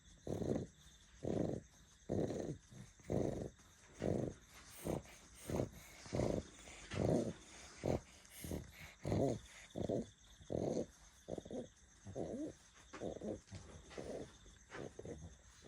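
A sleeping dog snoring, each breath a rough, low snore, in an even rhythm of about one a second.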